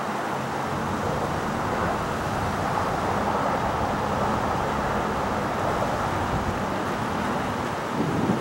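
Boeing 757 twin-engine jet climbing after takeoff, heard from the ground as a steady broad jet roar that grows a little louder a few seconds in.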